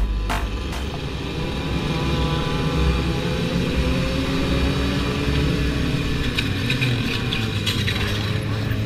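Sport motorcycle engines running and revving in a group of bikes, heard from the rider's own bike with wind noise; the engine pitch rises and falls. A few sharp clicks come near the end.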